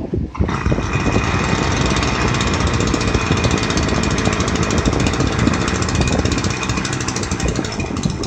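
Small single-cylinder engine of a portable pump running fast and steady, its sound filling out about half a second in. Its carburettor air-fuel mixture screw is being adjusted after a diaphragm replacement and a weak-spark repair.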